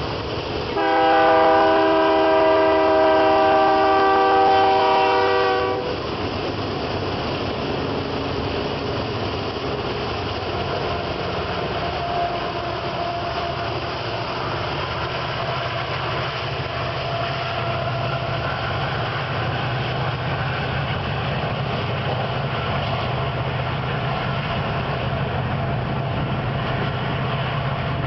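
Diesel freight locomotive's air horn sounding one long chord, about five seconds, as the lead GE C44-9W passes close by. After it, the locomotive consist runs under load, pulling a heavy loaded grain train upgrade, with a steady low engine drone, then loaded covered hopper cars roll past on the rails.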